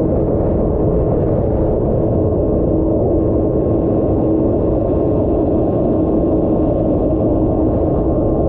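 Yamaha SuperJet stand-up jet ski with a 1050 four-stroke engine running flat out at speed, heard from on board. A loud, steady engine drone sits over rushing water and wind, with a second ski's engine running alongside.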